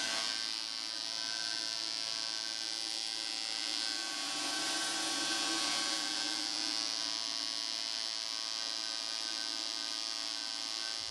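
Air compressor and spray-texture rig running steadily: an even machine hum with a strong high air hiss over it.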